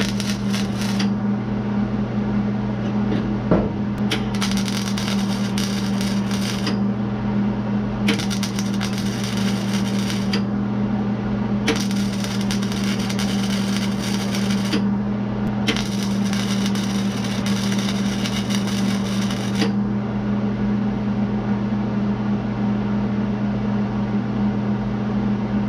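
MIG welder arc crackling in five short bursts of one to four seconds each, stitch-welding a replacement cab corner panel of thin sheet steel. The welding stops about three-quarters of the way through. A steady low hum runs underneath the whole time.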